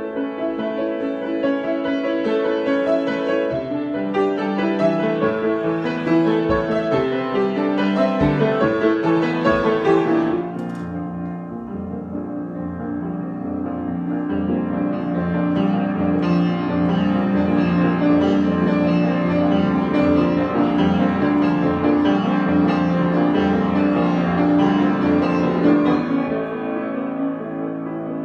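Piano improvisation: a busy run of moving notes and chords, then about ten seconds in it drops quieter and settles into lower, sustained chords that swell again.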